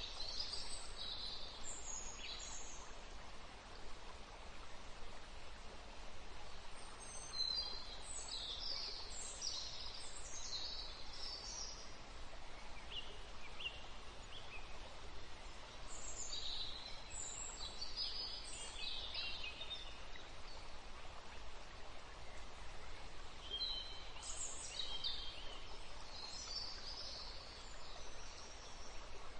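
Steady background hiss with birds chirping in high, short bursts that come and go every several seconds.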